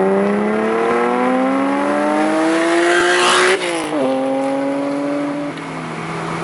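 Honda NSX V6 through a Taitec aftermarket exhaust, accelerating hard: the revs climb steadily for about three and a half seconds, fall sharply at an upshift, then hold roughly steady and drop again near the end.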